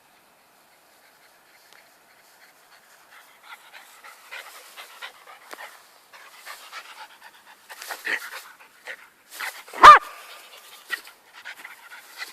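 Jack Russell terrier panting in quick, rough breaths that start a few seconds in, with one short, loud bark just before the ten-second mark.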